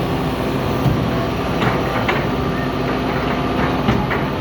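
Excavator's heavy diesel engine running steadily, with a few short sharp knocks over the middle and near the end.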